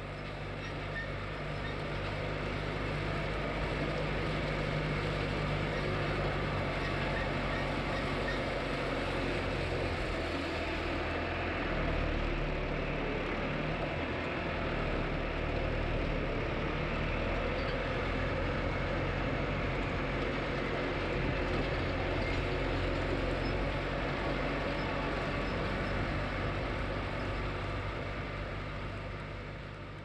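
Tractor engine running steadily while pulling a hay mower, with a low hum that shifts slightly partway through. It fades in at the start and fades out near the end.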